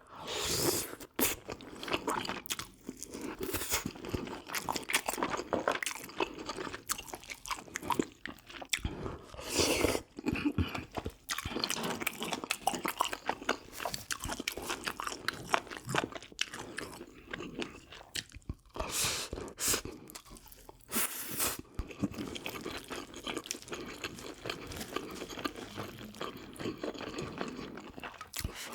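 Close-miked eating sounds: wet chewing and lip smacking on spicy braised pork ribs, with a few louder noisy bursts of biting or slurping scattered through.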